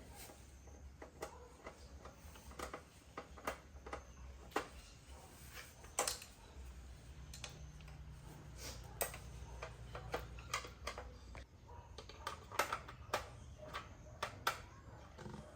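Irregular small clicks and taps of work on an amplifier, with tools and parts being handled, a few a second, over a low steady hum.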